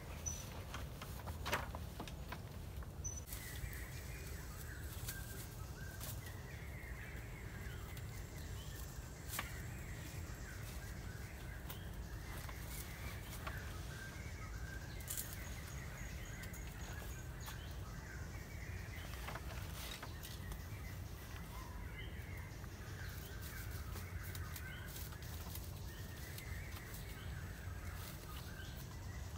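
Birds chirping and warbling from about three seconds in, over a steady low rumble, with a few sharp knocks, the loudest near the start.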